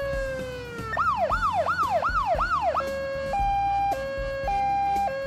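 Emergency vehicle siren cycling through its modes: a slow falling wail, then about five quick falling yelps, then a high-low two-tone with each note lasting about half a second. A steady low beat runs underneath.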